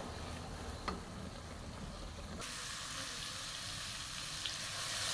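Ground green chili paste frying in oil in a wok, sizzling steadily as a spatula stirs it, with a single sharp tap about a second in. About halfway through, the sizzle turns louder and brighter.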